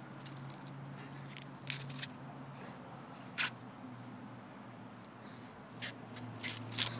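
Corn husks rustling and tearing in short crackles as a schipperke rips them off an ear of corn with its teeth, with a few crackles close together near the end. A steady low hum runs underneath.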